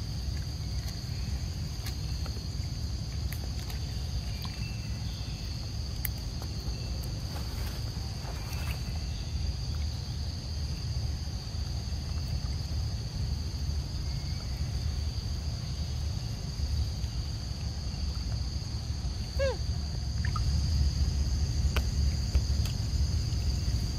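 Steady high-pitched drone of insects over a low rumble. One quick falling whistle-like call about three-quarters of the way through.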